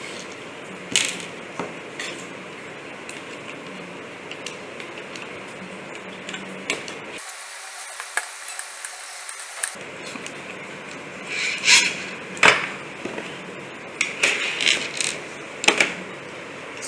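Handling clicks and knocks from a small screwdriver, plastic wheels and a sheet-metal robot chassis as the wheels are screwed onto the motor shafts and the chassis is set down on a wooden table, a few early and a quick cluster in the second half, over a steady low hiss.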